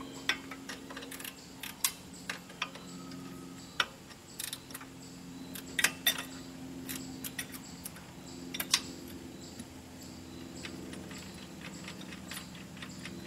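Hand wrenches clicking and clinking against metal as engine mounting bolts are worked loose, in irregular sharp metallic ticks. A faint steady low hum runs underneath.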